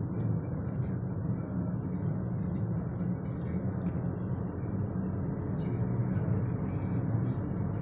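Steady engine and tyre noise of a moving car heard from inside its cabin: a low, even rumble with no change in pace.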